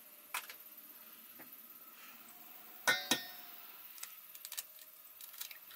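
An egg knocked twice in quick succession on the rim of a stainless steel mixing bowl, the bowl ringing briefly after each knock, followed by a few faint clicks as the shell is handled.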